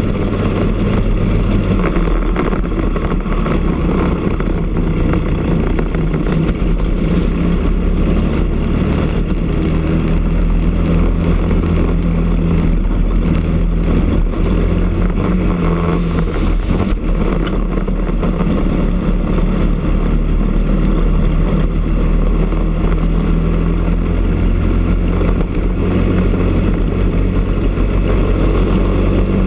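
Briggs & Stratton LO206 single-cylinder four-stroke kart engine running hard under racing load, heard from the kart itself. Its note steps down and climbs back up every few seconds as the kart brakes and accelerates through the corners.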